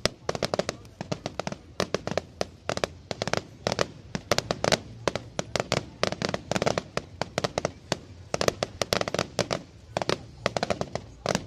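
Fireworks display: rapid, irregular bangs and crackles, several a second.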